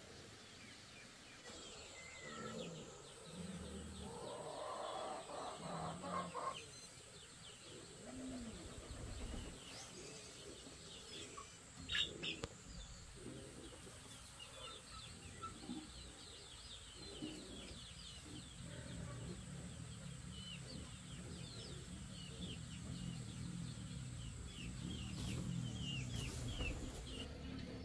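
Farmyard ambience of many small birds chirping in quick short notes, with chickens clucking now and then. A faint steady high tone runs under it, and there is one sharp click about twelve seconds in.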